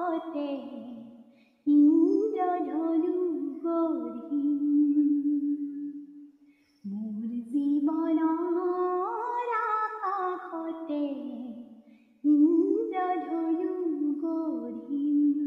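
A woman humming a slow melody with no accompaniment, in three phrases that each fall to a long held low note.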